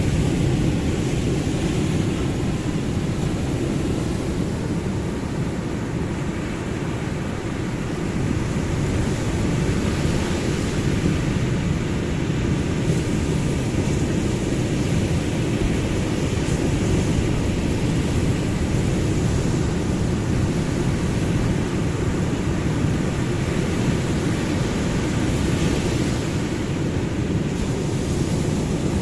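Ocean surf washing steadily in a continuous low rumble, swelling and easing only slightly.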